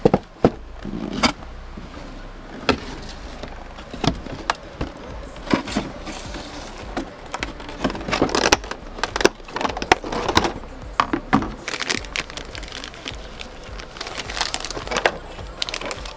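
Plastic packaging of a boxed PVC figure being unpacked by hand: a rigid clear plastic blister tray and a plastic bag crinkling and clicking in irregular crackles and taps.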